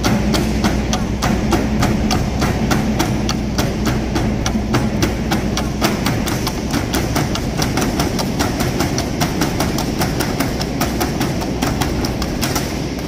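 Tinikling bamboo poles being knocked on the stage floor and clapped together, making a steady, fast rhythm of sharp wooden clacks over a low hum.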